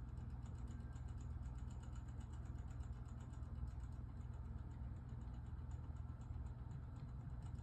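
Inexpensive battery wall clock's movement ticking rapidly, several light ticks a second, as it fast-advances its hands to set itself. A steady low hum runs underneath.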